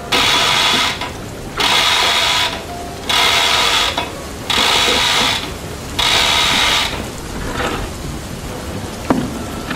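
Manual chain hoist being hauled hand over hand: five rattling, ratcheting runs of chain through the block, each under a second long and about a second and a half apart, then a single sharp click near the end.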